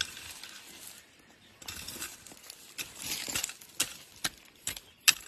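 Scraping and shuffling, then several sharp separate clicks and taps near the end, as something is covered over and trodden down by foot.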